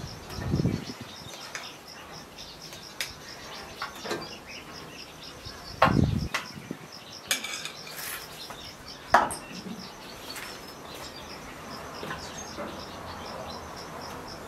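Kitchenware being handled: scattered knocks and clinks of an enamel bowl and metal pot on a wood stove, the loudest about six and nine seconds in. A faint, evenly pulsing high chirp runs underneath.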